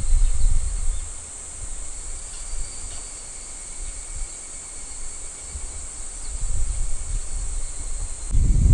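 Steady high-pitched chorus of insects, with wind rumbling on the microphone in the first second and again, louder, near the end.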